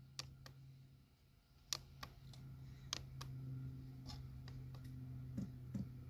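Faint sharp clicks, irregular and a few a second at times, from the buttons of a Chinese diesel heater's control panel being pressed to prime the fuel system. Under them runs a low steady hum that starts at the beginning and gains a higher tone about three seconds in.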